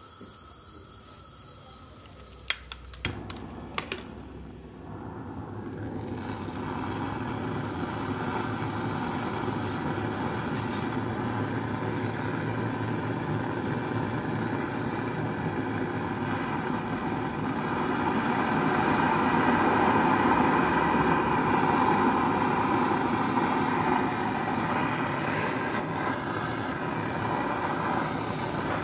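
Butane canister torch: a few sharp igniter clicks about three seconds in, then the torch lights and burns with a steady rushing hiss, a little louder past the middle, as its flame heats gold in a crucible for melting.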